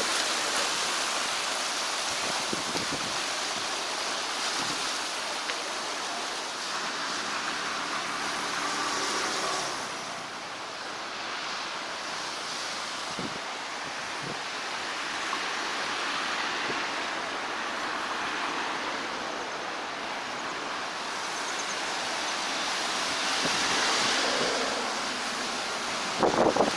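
Sea waves washing against a rocky shore: a steady rushing surf that swells and eases, loudest a little before the end.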